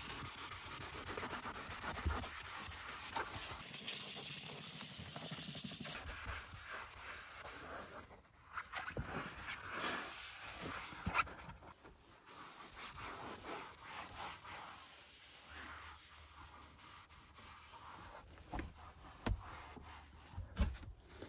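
Cloth rubbing and wiping foamy shampoo cleaner across a car's interior trim panel: faint, irregular scrubbing strokes with a few small knocks.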